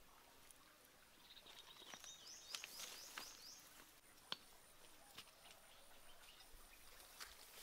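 Faint outdoor sounds: a bird's quick run of high chirps about a second in, then scattered clicks and rustles of leaves and stems being handled and picked. A thin, high, steady tone runs through the second half.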